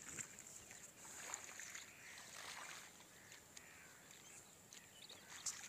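Near silence: faint outdoor ambience with the faint flow of water along an earthen field irrigation channel.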